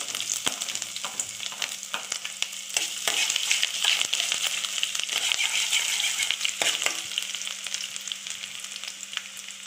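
Chopped ginger frying in hot sesame oil with mustard and fenugreek seeds in a steel pan: a steady crackling sizzle that grows louder mid-way and eases off toward the end.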